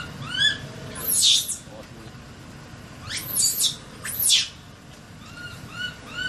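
Baby macaque screaming: three shrill, high-pitched screams, about a second in, around three seconds in and just after four seconds, with short, softer chirping calls near the start and again near the end.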